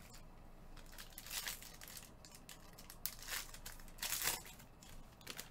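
Plastic wrapping on a trading-card box crinkling and tearing as it is opened by hand. The crackles are irregular, with louder bursts about a second and a half in and again around four seconds.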